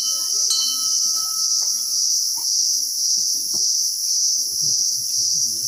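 A loud, steady, shrill chorus of insects, pulsing slightly.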